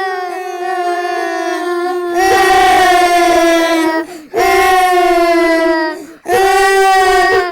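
Small girls crying: long, loud wails held at a steady high pitch, each broken off by a short catch of breath about every two seconds.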